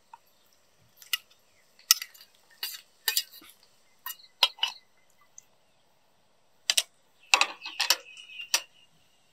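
Metal camping cookware clinking: a metal bowl and lid knocking against an aluminium camping pot, in about ten sharp knocks with a pause in the middle. Near the end a short ringing tone sounds under the clinks.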